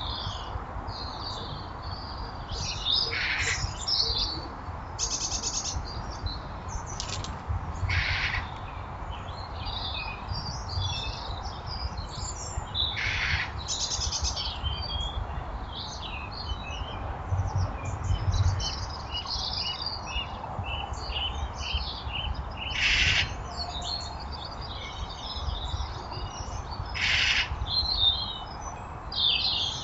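Garden birds chirping and calling throughout, with about nine short, louder, harsh calls spread through it, over a low rumble.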